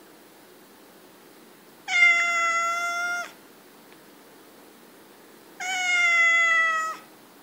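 Domestic cat giving two long, annoyed meows, each about a second and a half long and sliding slightly down in pitch.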